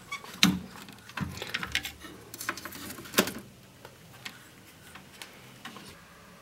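Scattered light clicks and taps from multimeter test probes and leads being handled and touched to a TV mainboard, the loudest about half a second and three seconds in. The meter, set to continuity, gives no beep: no short circuit on the voltage regulator's output.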